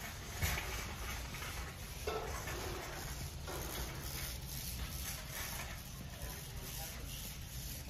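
Background noise of a large warehouse store: a steady low hum with a few faint knocks and clatters, one sharper knock about half a second in.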